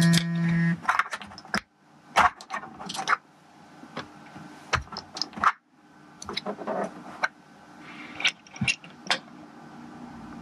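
Irregular clicks and taps of a computer mouse and keyboard, single sharp clicks scattered throughout, after a brief steady pitched tone at the very start.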